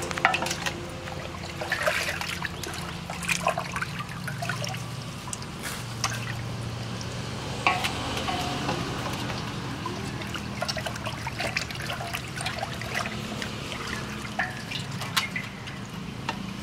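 Water sloshing and splashing in a metal pot as whole raw chickens are washed by hand, with trickling and dripping as the birds are lifted and turned. The splashes come irregularly over a steady low hum.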